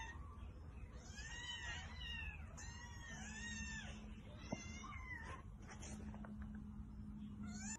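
Young kittens mewing: a quick run of high, rising-and-falling mews over the first few seconds, then one more near the end.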